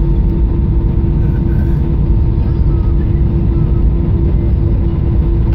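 Cabin noise of an Airbus A319 with IAE V2500 engines rolling along the runway just after landing: a loud, steady rumble of engines and wheels with a steady hum underneath.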